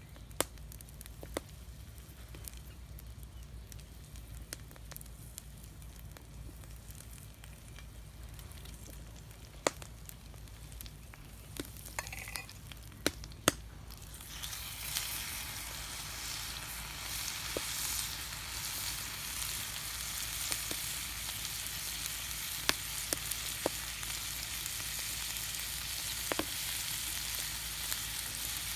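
Potato strips frying in hot olive oil in an iron pan over a campfire: a steady sizzle starts about halfway through and holds, with a few sharp clicks and knocks before and during it.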